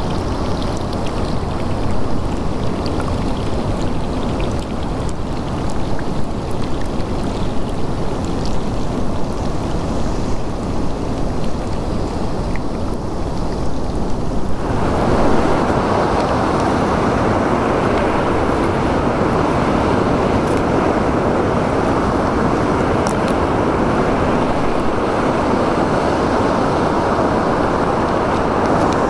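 Waterfall rushing steadily. About halfway through, the sound cuts abruptly to a louder, deeper steady rush.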